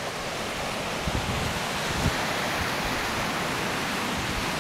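Steady rushing hiss of small waves breaking and washing up a beach. A few low thumps on the microphone come about one and two seconds in.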